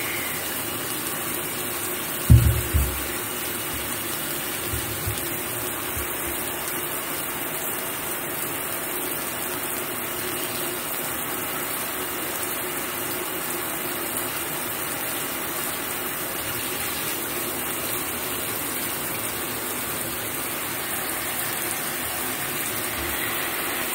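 Shower running: a steady hiss of water spray, with a loud low thump about two seconds in and a couple of softer bumps around five seconds.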